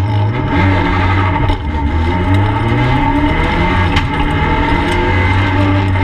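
Peugeot 208 R2B rally car's naturally aspirated 1.6-litre four-cylinder engine under hard acceleration, heard from inside the stripped cabin. The engine note rises, dips briefly about a second and a half in, then climbs again and holds steadier.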